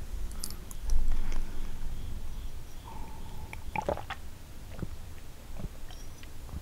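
Close-miked chewing of a bite of kouign-amann pastry, with a low bump about a second in, then sipping and gulping from a plastic cup around four seconds in.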